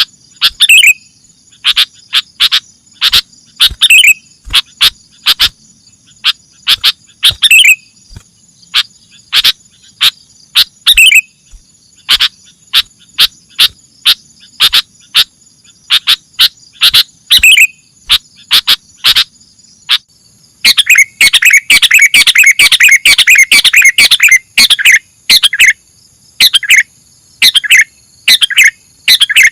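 Young sooty-headed bulbuls (kutilang) calling in short, sharp chirps, a few of them ending in a falling note. About two-thirds of the way through they break into a dense run of rapid chirping for about four seconds. A steady high insect drone runs behind them.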